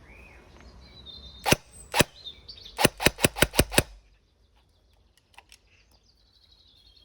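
Cyma SR25 airsoft electric gun (AEG DMR) firing on semi-auto, each shot a sharp crack. There are two single shots about half a second apart, then a quick string of six.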